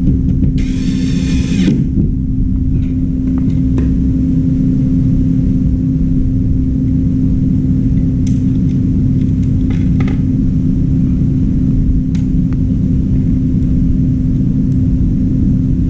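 A steady low machine hum with a constant tone, with a cordless power screwdriver whirring for about a second near the start as it backs a screw out of a washing machine's metal cabinet. A few light clicks follow later.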